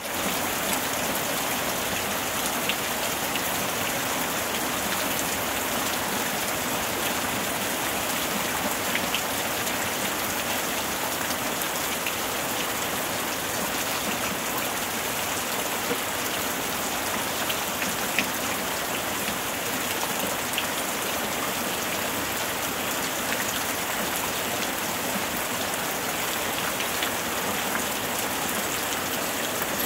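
Steady rain: an even hiss with scattered light drop ticks, cutting in suddenly at the start.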